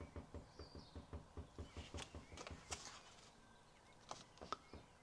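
Faint, rapid, regular low banging of about five knocks a second, with a few sharper taps now and then. The speaker thinks it comes from birds in the loft or on the roof.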